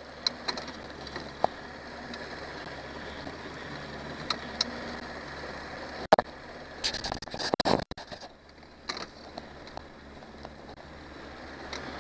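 Johnson 90 hp outboard idling with a low, steady hum, and a cluster of sharp knocks and rustles about six to eight seconds in.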